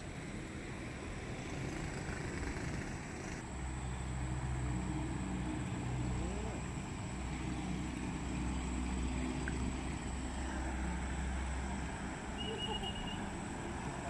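A motor vehicle's engine as a low steady rumble, stronger from about three seconds in and easing off near the end, with a few short high chirps near the end.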